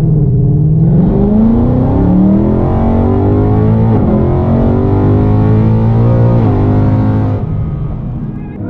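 A 2018+ Ford Mustang GT's 5.0 L V8 revving through its active exhaust with the valves open in track mode. Its pitch climbs over the first couple of seconds, holds and is blipped up and down, then drops off a little before the end.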